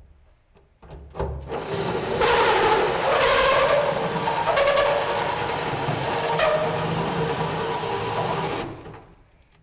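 Cordless drill cutting a hole down through the steel floor of a Nissan D21 pickup bed. It starts about a second in, grinds at a steady, shifting pitch for about seven seconds as the bit bites the metal, and stops near the end.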